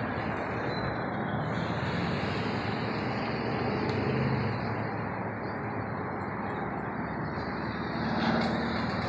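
Steady road-traffic noise: a broad, even rush of passing cars, growing a little louder near the end.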